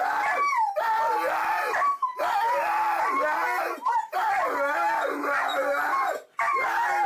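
A dog howling in a string of long calls whose pitch wavers up and down, with short breaks between them.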